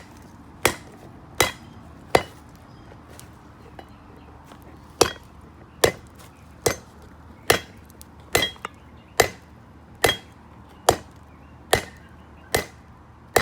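Hand hammer blows flattening a hot 1-inch steel drill bit at the forge, each with a short metallic ring. Three evenly paced strikes, a pause of a few seconds, then about ten more at just under one a second.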